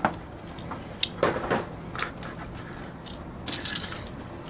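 Hard plastic transforming toy robot being handled and set down on a table: a few light plastic clicks and knocks, with a soft rustle near the end.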